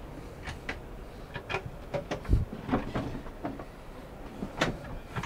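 Wood-fronted kitchen drawer being pushed shut and pulled open by hand: a string of short clicks and knocks from the drawer and its runners, with a duller thump about halfway through.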